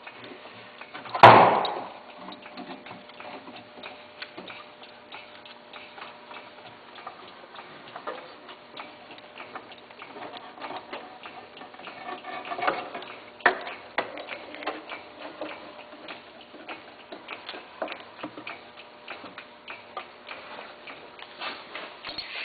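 Hydraulic lift slowly raising a skid steer's hydraulic drive motors: many small ticks and clicks over a faint steady hum, with one loud clunk about a second in.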